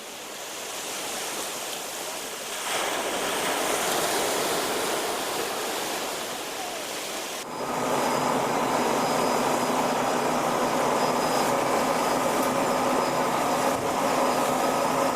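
Sea and wind noise for the first seven seconds or so, then a sudden change to a steady engine hum with a thin high whine over it, most likely a boat's engine running under way.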